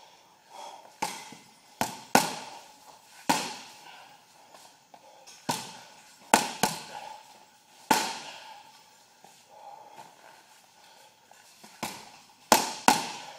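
Punches landing on a hanging heavy punching bag: about a dozen sharp smacks at irregular intervals, several in quick pairs, each with a brief ringing tail.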